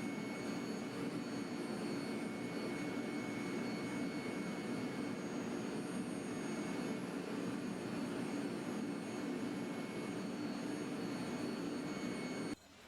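A steady machine running: an even low rushing hum with a thin high whine over it, cutting off suddenly near the end.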